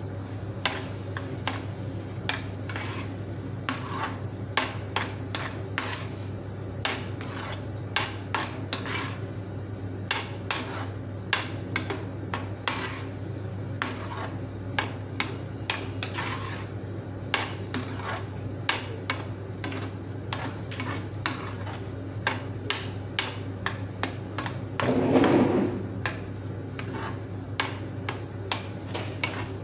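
A perforated metal spoon scraping and clinking against a metal pan as thick semolina halwa is stirred, with many short sharp clicks over a steady low hum. About 25 seconds in there is a brief, louder rush of noise.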